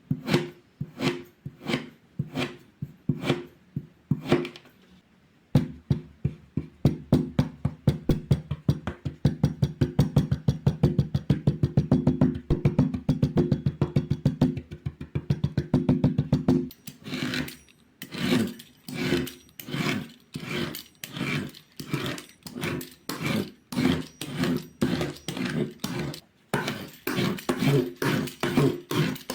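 Kinetic sand being cut, crunching with each stroke: slow strokes at first, then after a short pause a fast run of rapid crunching cuts for about ten seconds, then slower strokes again.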